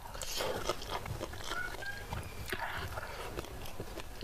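Close-miked eating sounds: a handful of rice taken into the mouth by hand, then wet chewing and lip smacks with small clicks. The loudest of these come about half a second in and again a little past the middle.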